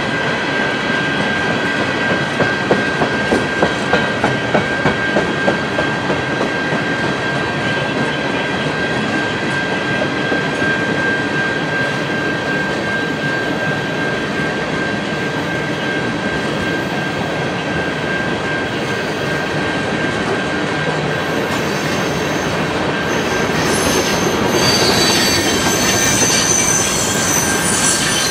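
Freight train of tank cars rolling past at close range: steady noise of steel wheels on rail with a constant high tone over it. A run of about ten regular clacks comes a few seconds in, and a high wheel squeal builds near the end.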